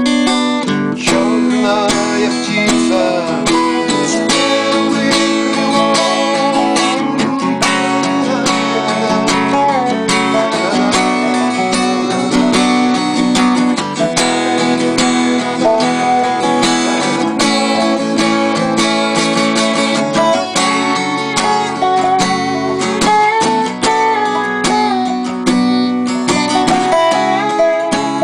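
Instrumental duet: an acoustic guitar fingerpicked and strummed, with a Dobro resonator slide guitar playing gliding melody lines over it.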